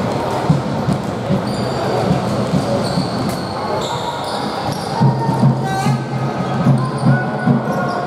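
Basketball game sounds: a basketball bouncing repeatedly on the court, with short high squeaks of sneakers on the floor and voices in the background.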